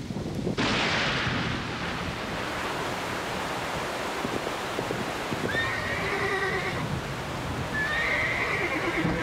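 Heavy rain pouring down, starting suddenly about half a second in, with a horse whinnying twice in the second half, each call drawn out for about a second.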